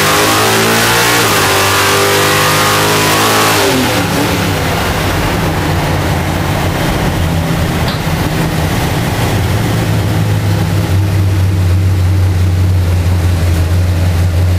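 Chevy van engine under hard acceleration, heard from inside the cab, climbing in pitch. About four seconds in the engine lets off sharply and then runs steadily at a lower pitch while cruising.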